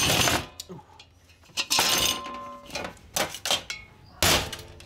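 Instant Pot metal housing and plastic outer shell clattering and clinking as they are handled and pulled apart, with loud knocks at the start, at about two seconds and near the end, and small clicks between.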